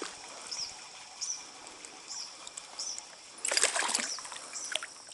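A hooked brown trout splashing and thrashing at the stream's surface for about a second, some three and a half seconds in. Under it, a small bird gives a high chirp over and over, a little more than once a second.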